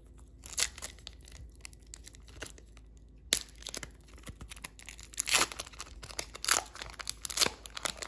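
Foil wrapper of a Panini NBA Player of the Day trading-card pack being torn open and crinkled in the hands: a run of irregular sharp crackles and rips, the loudest ones in the second half.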